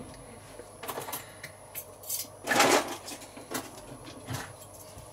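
Kitchen handling noises: a few light knocks and clicks, with one louder, longer clunk about two and a half seconds in.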